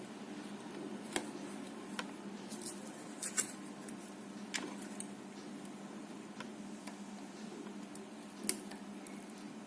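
Light clicks and ticks of small metal tools working on a circuit board while a 5 V regulator IC is desoldered, a few in a quick cluster about three seconds in and a sharper one near the end, over a low steady hum.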